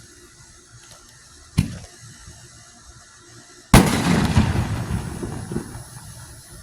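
Homemade 2-inch firework ball shell fired from a mortar tube: a short thump from the lift charge about one and a half seconds in, then about two seconds later a loud bang as the shell bursts overhead, dying away over about two seconds.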